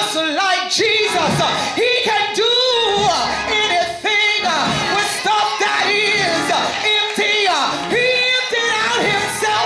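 A woman preacher singing loudly into a handheld microphone in long, sliding sung phrases, her voice amplified through the church sound system.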